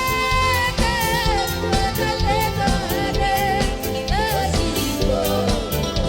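Band music with a voice singing a melody in long, wavering held notes over a steady drum beat.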